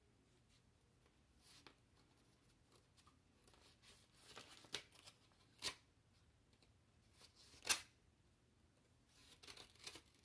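A paper mailer envelope rustling as it is handled and cut open with scissors: scattered crisp snips and clicks of the blades. The loudest snip comes about three quarters of the way through, with more cutting near the end.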